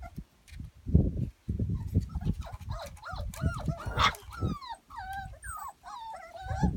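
Cockerjack (Jack Russell × Cocker Spaniel) puppies whining and yelping, with many short high cries that rise and fall and overlap, thickest from about two and a half seconds in. Bursts of low rumble in the first half, the loudest about a second in.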